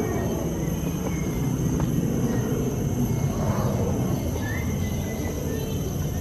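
Tropical forest ambience picked up by a handheld camera's microphone while walking: a steady low rumble on the microphone with an even, high insect drone above it, and one short rising chirp about two-thirds of the way through.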